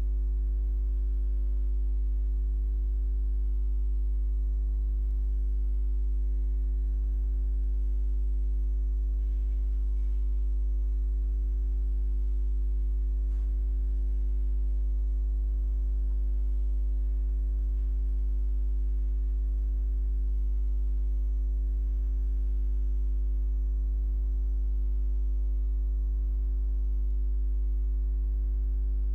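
Steady low electrical hum with a stack of overtones, typical of mains hum picked up in the recording chain. A single faint click about 13 seconds in.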